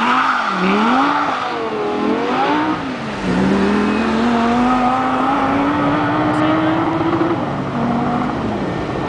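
Audi R8's V10 engine launching hard off the line under launch control: the revs dip and climb over the first seconds, drop once about three seconds in at a gear change, then climb steadily in the next gear and fade as the car pulls away.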